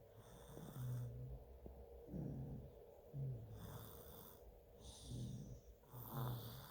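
Twins snoring in their sleep: about five short, low-pitched snores, mixed with airy, hissing breaths.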